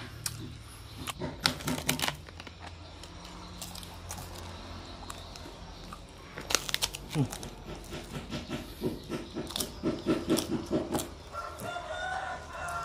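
Chickens clucking in quick repeated notes, then a rooster crowing near the end, with sharp clicks and scrapes earlier on.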